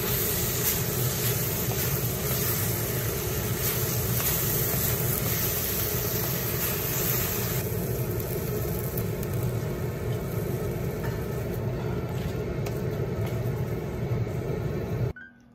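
Pork, onion and whole green peppers sizzling hard in a black wok as they are tossed with a wooden spatula and a ladle: a steady loud hiss whose top end thins a little about halfway through. Right at the end it cuts off and piano music starts.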